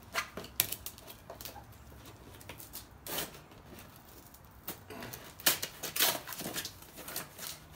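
Parts packaging rustling and crinkling in short, irregular bursts with scattered clicks, as a steering-shaft U-joint is taken out of its delivery package. The loudest bursts come about five to six seconds in.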